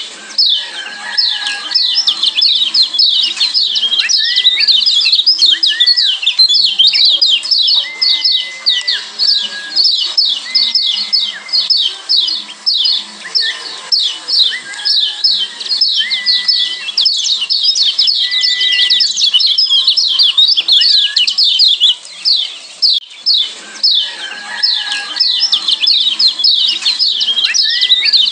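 Kecial kuning (Lombok yellow white-eye) calling in a fast, unbroken run of sharp falling 'ciak' notes, several a second, with a short level whistle now and then beneath the chatter.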